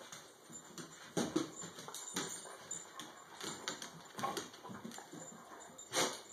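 Dogs playing, with scattered faint grunts and snuffles. Near the end comes one short, sharp dog sneeze, the loudest sound here.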